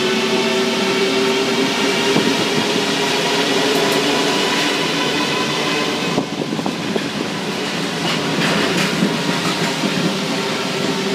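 Paris Metro Line 1 driverless rubber-tyred MP05 train running through the tunnel, heard from inside the car: a steady ride noise with a whine of several steady tones and scattered knocks and rattles. About six seconds in the hiss drops briefly.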